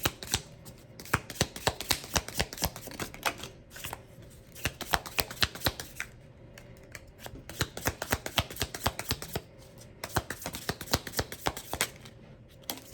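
A deck of tarot cards being shuffled by hand: quick runs of card flicks and slaps in bursts, easing off briefly a few seconds in and again near the end. A faint steady hum from a running clothes dryer sits underneath.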